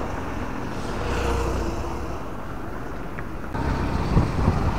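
Road traffic passing close by: a car and a motorbike driving past. A little over three seconds in, the sound cuts to a louder rumble with a few low thumps.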